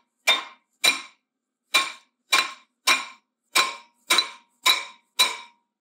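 Hammer blows knocking a stuck brake disc off the front hub of a Renault Trafic van: nine sharp metallic strikes about half a second apart, each ringing briefly.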